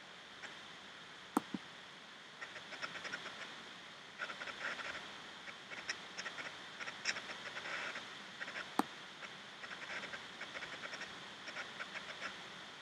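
Faint steady hiss with runs of quick, choppy scratchy crackles, and two sharp computer-mouse clicks, one about a second and a half in and one near nine seconds in.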